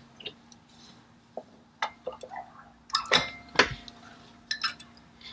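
Steel engine parts clinking and knocking as a flywheel and flex plate are handled onto a transmission adapter plate: scattered sharp clinks, the loudest pair a little after three seconds in, one leaving a short metallic ring.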